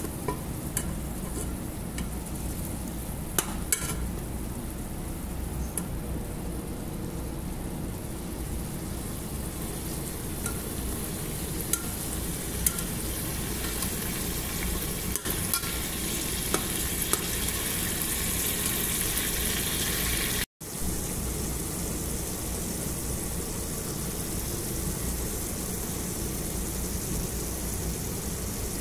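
Chicken pieces and tomato sizzling in a metal pot, with a metal spoon clicking and scraping against the pot as they are stirred. The sound cuts out for an instant about twenty seconds in, then the steady sizzle carries on.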